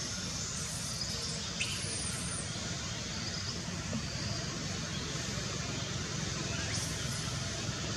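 Steady outdoor background noise with a low hum like distant traffic. A few faint, short high-pitched chirps come about two seconds in and again near the end.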